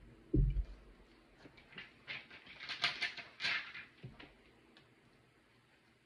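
Hands pressing and working a mound of pink slime. A soft low thud comes about half a second in, then a run of small sticky clicks and crackles that is densest around the middle and dies away in the last couple of seconds.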